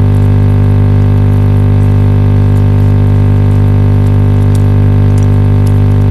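A loud, steady hum on one low pitch with many overtones, unchanging throughout.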